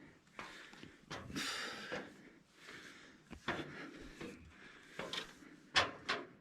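A man breathing hard as he climbs, with a few sharp footfalls on metal stair treads near the end.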